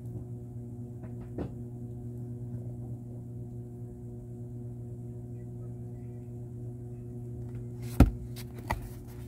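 Steady low electrical hum, with two sharp knocks near the end as the cardboard product box is handled and turned over.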